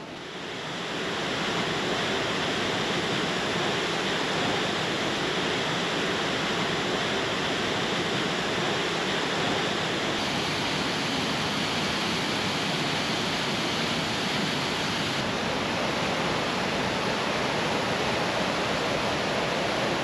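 Glacial river water rushing through a narrow slot canyon in waterfalls and cascades: a steady, even rush. Its tone shifts slightly about ten seconds in and again about fifteen seconds in.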